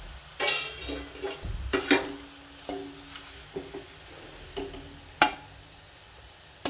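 Steel ladle scraping and knocking against a metal kadai while fried crushed garlic is scooped out, with several sharp clanks that leave the pan ringing briefly. Hot oil sizzles faintly underneath.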